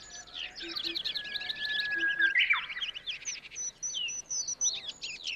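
Many birds singing and chirping together in woodland, a dense chorus of quick chirps and trills. A long whistled note runs from about a second in, and a low two-note call comes three times in the first half.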